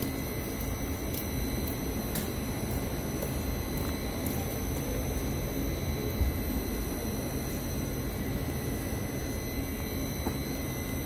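VTA light rail train beside the platform: a steady low rumble with a faint, steady high-pitched whine over it.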